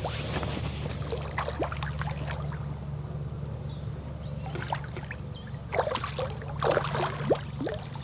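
Hooked common carp splashing at the surface close to the landing net, in short flurries, the loudest about six and seven seconds in.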